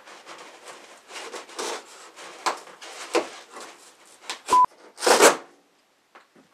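Cardboard packaging being pulled and scraped off a fridge: a run of irregular rubbing and scraping strokes, with a louder rustling burst about five seconds in. A short steady beep sounds about four and a half seconds in.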